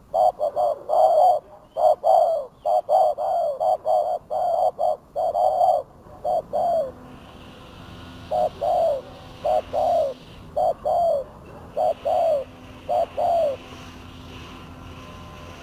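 Spotted doves cooing: a quick run of short, falling coos through the first six seconds, then single coos spaced roughly a second apart.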